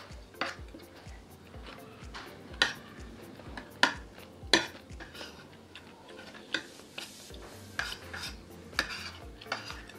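Cutlery clinking and scraping against a dish in irregular strokes, the sharpest clinks between about two and a half and five seconds in.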